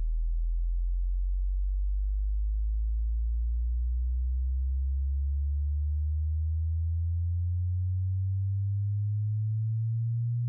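Hearing-test frequency sweep: a single pure, very low tone that climbs slowly and steadily in pitch, from a deep hum toward a low note.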